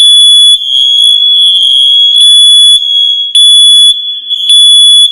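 Networked FireAngel Wi-Safe 2 mains smoke alarms sounding together after a test button press. A loud, high-pitched alarm tone holds steady, and over it the nearest alarm sounds in louder half-second beeps about once a second.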